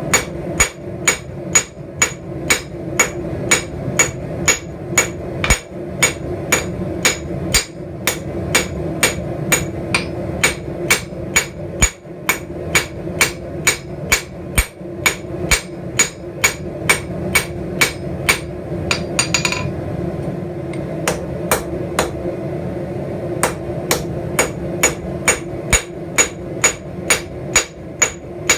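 Blacksmith's hammer striking steel on an anvil in a steady rhythm, about two to three ringing blows a second, while forging a leaf. A steady low hum runs underneath.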